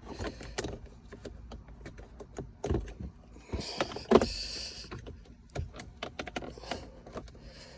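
Plastic dashboard trim being worked into place by hand: a string of small clicks and knocks with brief scraping of plastic on plastic, the loudest knock a little past the middle.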